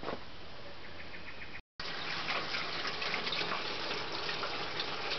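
Water from a garden hose running into a roof gutter and downpipe: a steady splashing rush that starts after a short break about two seconds in.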